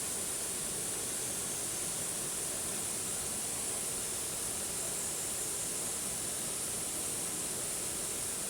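Waterfall: falling water rushing steadily as an even, hissy noise that does not change.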